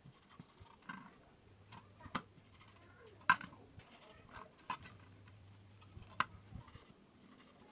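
A few light, separate taps and clicks as a galvanised steel hollow section and a marker pen are handled and set down on a board, the sharpest about three seconds in.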